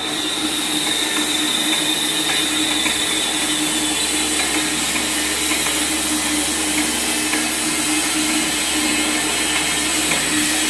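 Planetary mixer running: a steady electric motor hum and whirr with a constant low tone, holding level throughout.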